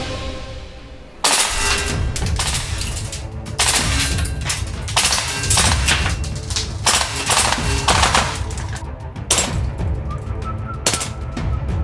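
Music fades, and about a second in repeated bursts of automatic gunfire begin, each a quick run of sharp cracks, with music going on underneath.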